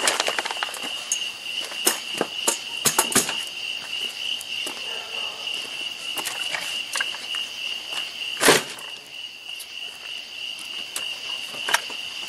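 A steady, high-pitched chorus of night insects, with scattered sharp knocks and clicks; the loudest knock comes about eight and a half seconds in.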